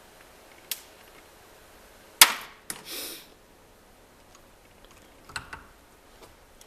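Sharp metallic clicks and clacks of steel manual-gearbox parts being handled during teardown. The loudest is a hard clack about two seconds in with a short ring after it, followed at once by another click and a brief scrape. A few lighter taps come near the end.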